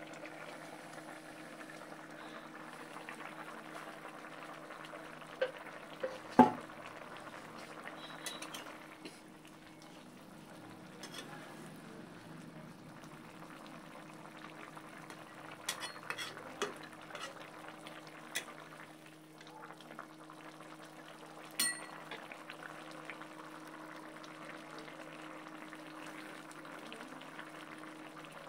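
Kitchen cooking sounds: a steady low hum and hiss with scattered clinks of utensils against cookware. The sharpest clink comes about six and a half seconds in, with a few more in the middle and one near twenty-two seconds.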